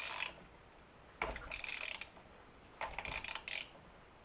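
Metal chainsaw parts and hand tools being handled: three short bursts of clicking and rattling about a second apart, as the bar is worked onto its stud.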